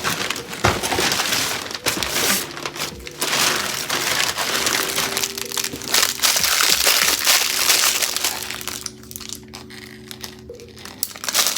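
Plastic packaging crinkling and rustling with small crackles as a new item is unwrapped by hand. The handling is busy for most of the stretch and dies down near the end.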